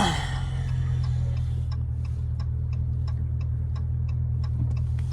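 Dodge Charger's turn-signal indicator clicking at an even pace, about three clicks a second, starting a couple of seconds in, over the steady low hum of the car's cabin while driving.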